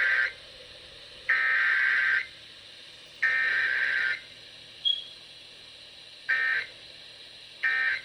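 Emergency Alert System SAME data tones: the end of one buzzy data burst and two more about a second long, evenly spaced, then two short bursts near the end, the end-of-message code. This is the pattern of a Required Weekly Test sent with no message between the header and the end code.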